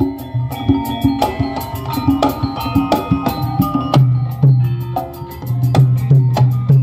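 Loud music with drums and a heavy, repeating bass line, played through a large event sound system.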